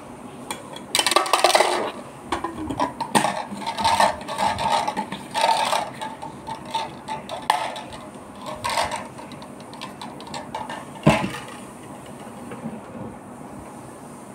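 Plastic Strauss Blender Bottle shaker being handled and its lid fitted, with irregular scrapes and knocks of plastic and one sharp click late on.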